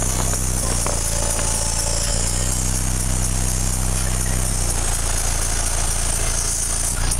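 Car audio subwoofers playing loud, sustained deep bass notes, the low tones shifting a couple of times, heard from just outside the vehicle.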